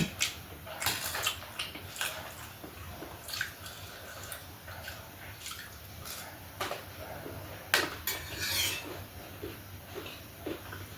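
Close-up mukbang eating sounds: biting into and chewing egg chop, heard as irregular short clicks and wet mouth noises, with a louder smeared burst about eight seconds in.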